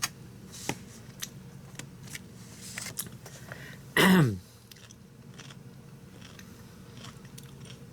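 Chewing and crunching on a crisp homemade dill pickle, a scatter of small crunchy clicks. About four seconds in comes one short vocal sound falling in pitch, the loudest thing here.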